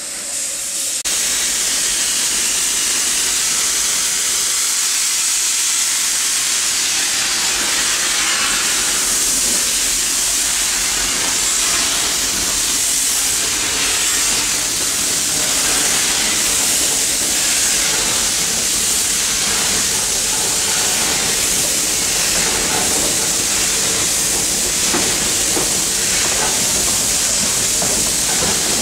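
A steam locomotive venting steam with a loud, steady hiss that sets in about a second in and holds throughout.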